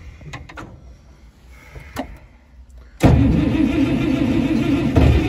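A few faint clicks, then about three seconds in the International Harvester tractor's engine starts abruptly and runs on steadily. It is a start after the tractor has sat unused for a day.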